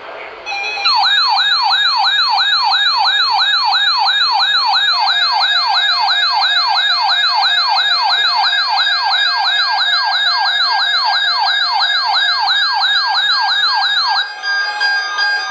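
Electronic emergency alert tone: a loud siren-like yelp sweeping up and down about three times a second. It starts about a second in and breaks off about 14 seconds in into a different pattern of steady beeping tones.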